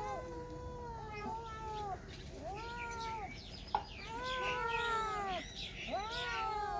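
Cats meowing: a run of drawn-out, rising-then-falling meows, several overlapping in the middle, with a brief sharp click partway through.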